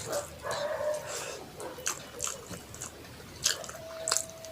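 Close-miked eating: wet chewing and lip smacking of rice and curry, with irregular sharp clicks.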